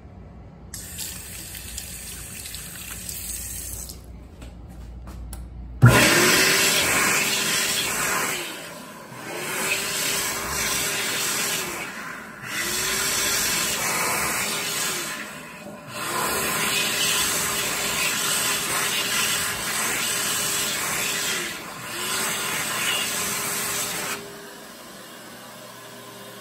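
A sensor faucet runs briefly. Then a World Dryer SMARTdri Plus hand dryer starts suddenly about six seconds in and blows hard in about five spells. Between spells it dips for a moment, its motor pitch sagging and rising again, until it stops a couple of seconds before the end.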